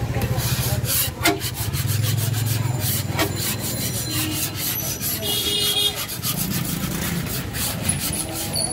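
Metal scraper scraping and knocking across a large flat dosa griddle in repeated short strokes, over a steady low hum.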